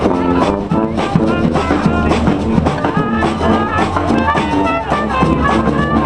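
Street brass band playing a lively tune: sousaphone bass under trumpets and other horns, with percussion strokes keeping a steady beat.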